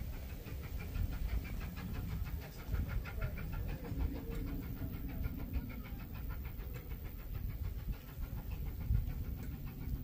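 Distant steam locomotive under way, its exhaust beats making a quick, even chuffing that fades toward the end, over a low, uneven rumble.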